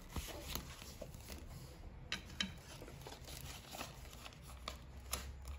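Paper banknotes and a clear plastic cash envelope being handled: faint rustling with scattered soft clicks as bills are pulled out and moved.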